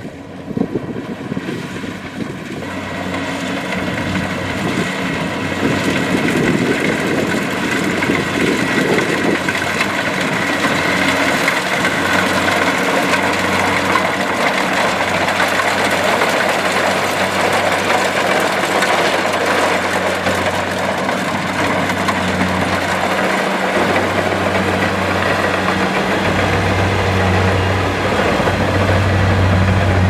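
Kubota DC-70 Plus rice combine harvester running as it cuts through the crop; its engine and machinery grow louder over the first few seconds as it draws near, then hold steady and close.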